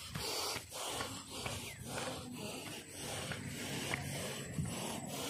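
A person panting heavily, out of breath from climbing a steep hillside on foot, with steps scuffing on dirt and dry grass.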